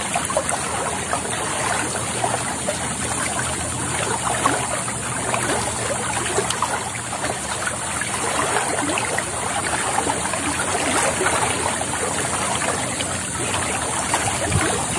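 Water flowing in a small stream, a steady rushing and babbling with a constant high hiss above it.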